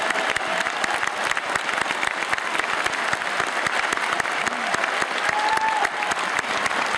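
A large crowd applauding steadily, many hands clapping at once, with a brief shout from the audience about five and a half seconds in.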